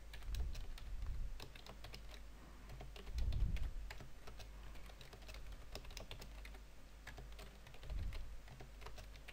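Typing on a computer keyboard: irregular runs of key clicks, with a few low bumps, the loudest about three and a half seconds in.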